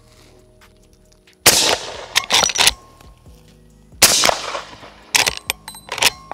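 Two suppressed .45-70 Government shots from a Henry X lever-action rifle fitted with a Silencer Central Banish 46 suppressor, about two and a half seconds apart. Each shot is followed by sharp metallic clacks as the lever is worked to chamber the next round.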